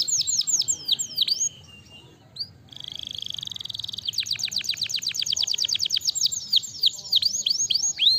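Domestic canary singing. Rapid trills of falling notes break off about a second and a half in, and a steady buzzing trill follows near the three-second mark. Then comes a fast run of falling notes that slows into wider, separate sweeps toward the end.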